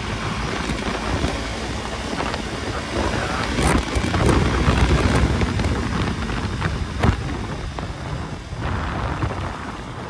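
Heavy wind rush buffeting the microphone of a motorcycle ridden fast, with the engine running underneath.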